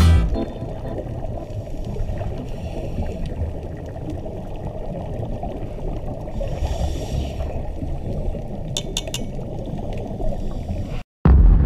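Underwater sound picked up through a GoPro camera's waterproof housing: a steady, muffled low rush of water with a diver's regulator bubbles, a burst of brighter bubbling hiss about halfway through and a few sharp clicks later on. After a brief dropout near the end, a loud low boom begins.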